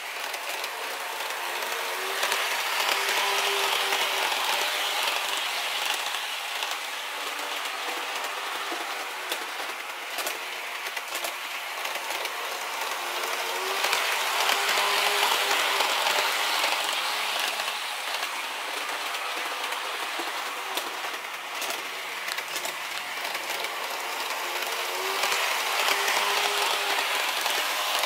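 TOMIX HO-gauge JR 115-1000 series electric train model running on its track, a steady rolling rattle with many small clicks from wheels and motor. It swells louder three times, about every eleven or twelve seconds, as the train comes round the loop close by.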